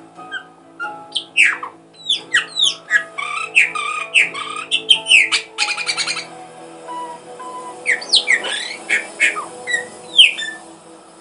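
A bird calling in quick bursts of chirps and squawks, many of them sharp falling whistles, in two busy spells. Quiet background music runs under it and fades about halfway through.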